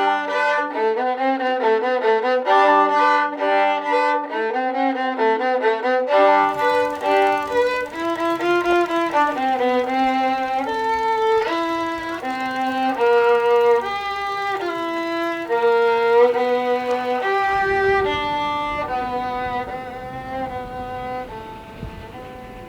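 Bowed string instrument music: a quick passage of short notes, then from about six seconds in a slower melody of held notes that fades toward the end.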